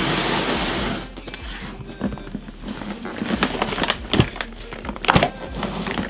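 Hard-shell carry-on suitcase being opened: a rasp of about a second as the zipper is run, then the lid swung back with a series of knocks and clatters from the shell and the packed contents, the sharpest two about four and five seconds in.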